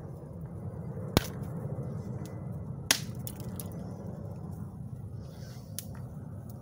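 Flint knapping: a hand-held hammerstone striking a piece of flint, giving two sharp cracks almost two seconds apart, followed by a few fainter clicks.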